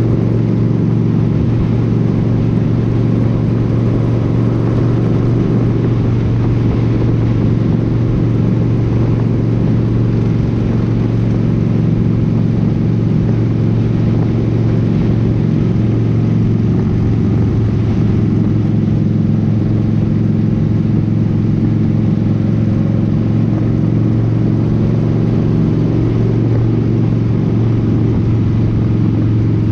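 Motorcycle engine running steadily at cruising speed, heard from the bike itself with wind and road noise, its note shifting a little about halfway through.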